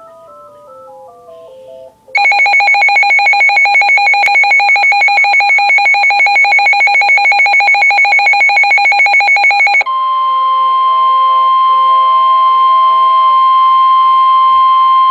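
Emergency alert tones: after a faint electronic melody, a loud, rapidly pulsing electronic alarm starts about two seconds in. About eight seconds later it gives way to one steady high tone, the kind of long warning tone sent before a weather alert, with the faint melody still going underneath.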